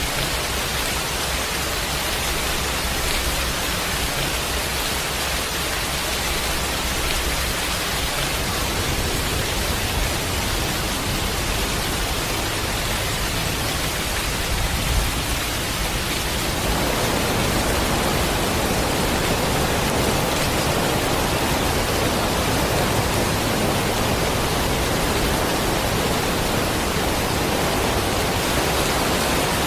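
Steady rushing noise of storm rain and water, growing fuller and a little louder a little past halfway.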